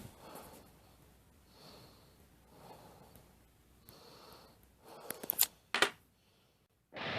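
Quiet room with a few faint breath-like sounds, then a cluster of sharp clicks about five seconds in, and a moment of silence before music starts right at the end.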